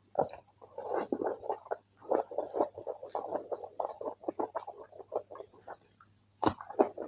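Close-up wet eating sounds: a bare hand squishing and mixing cooked rice into kidney-bean curry on a plate, with mouth sounds of chewing, a stream of short sticky crackles and clicks. It pauses briefly just before a sharper click near the end, as a handful goes into the mouth.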